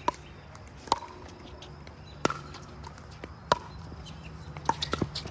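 Pickleball rally: paddles strike the hollow plastic ball back and forth with six sharp pops, most about a second apart and two close together near the end.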